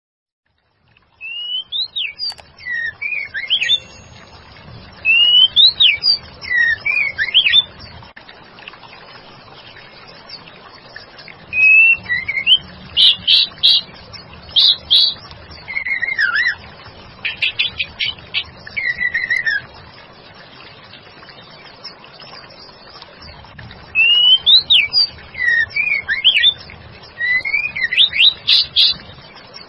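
White-rumped shama singing, labelled as a female calling to a male: short phrases of whistled notes that sweep up and down, broken by quick chattering trills, in three bouts with pauses of a few seconds between them, over a steady hiss.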